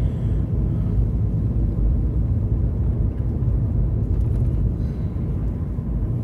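Steady low rumble of a vehicle's engine and tyres, heard from inside the cabin while driving on a snow-covered road.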